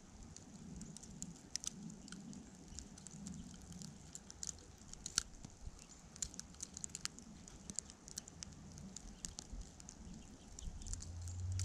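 Icy snow pattering: many light, irregular ticks. A low hum swells in near the end.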